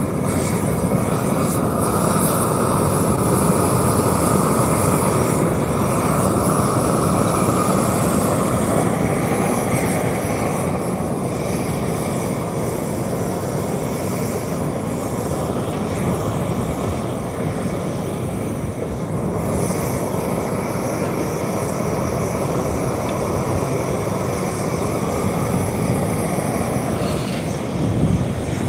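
Machinery working an asphalt speed bump down, running loud and steady without a break.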